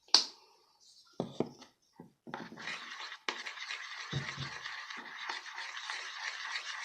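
A sharp click, then a few knocks, then steady scratchy scraping and rubbing from about two seconds in, as a shampoo slime mixture is stirred in a container.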